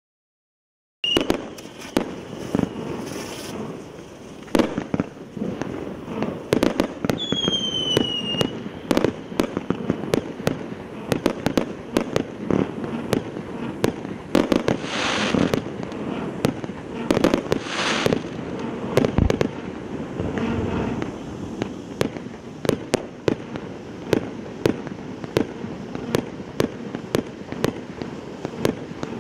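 Heart-shaped set of small outline fountain fireworks burning, starting about a second in: a continuous spraying hiss crackling with many sharp pops. A brief falling whistle sounds about seven seconds in.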